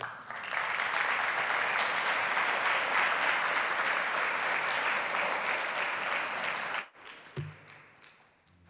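Audience applauding, a dense patter of many hands clapping that stops abruptly about seven seconds in.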